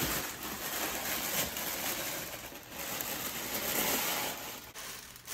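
Tissue paper crinkling and rustling as a sneaker is pulled out of its wrapping in a shoebox, easing off near the end.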